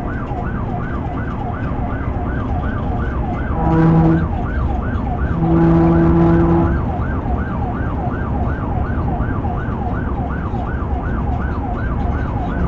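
Police patrol car siren in fast yelp mode, its pitch sweeping up and down about three times a second, over road and engine noise at high speed. A steady buzzing horn tone cuts in twice, briefly about four seconds in and for about a second around six seconds.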